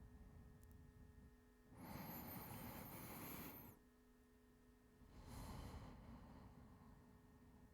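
A man's heavy breathing close to the microphone, acted as the laboured breathing of someone sick. There is one long breath of about two seconds, then a shorter, fading breath a second and a half later.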